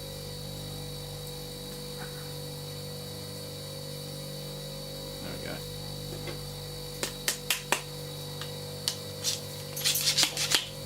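Metal clicks and scrapes as a cloth-patched slug is forced down a tight air-gun barrel with a ramrod, over a steady hum. The first seconds hold only the hum; scattered clicks start about seven seconds in, and a quick run of scraping clicks comes near the end.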